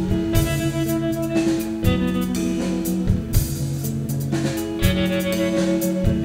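A band playing: electric bass and drum kit under long held notes, with steady drum hits.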